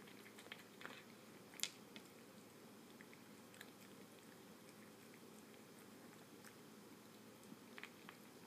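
Cat crunching dry kibble from a stainless steel bowl: faint, scattered crunches, a cluster in the first two seconds, a few in the middle and more near the end.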